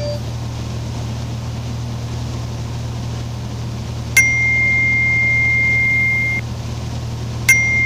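Steady low drone of a Mooney's piston engine and propeller in the cabin. About four seconds in a click brings a steady high beep tone that lasts about two seconds, and a second click and the same tone come near the end.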